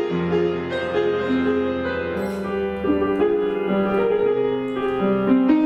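Slow instrumental music: a keyboard melody of long held notes over a low sustained bass note that drops out about three seconds in.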